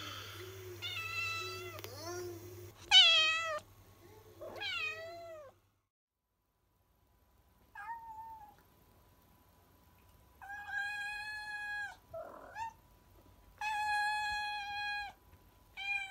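Two tabby cats in a fight standoff, yowling in long, wavering calls that rise and fall, the loudest about three seconds in. After a short silence, a cat gives a few long meows held at a level pitch.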